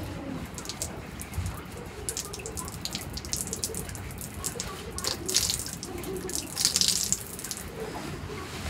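Water dripping and spattering onto the floor from a wet hand-washed garment being wrung out, with scattered drips throughout and two louder spells of splashing a little past halfway.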